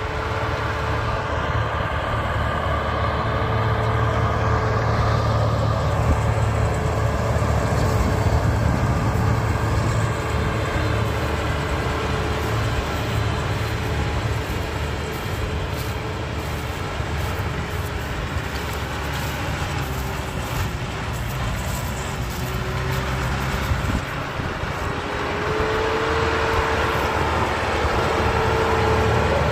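Daedong (Kioti) diesel tractor running steadily as it tows a PTO-driven manure spreader flinging cow manure across the field. The drone grows louder near the end as the tractor comes closer.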